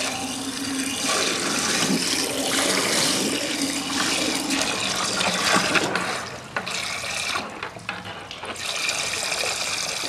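Water running and swirling in the bowl of a 1963 Briggs toilet while its tank refills after a flush. The flow eases for a couple of seconds about six seconds in, then picks up again.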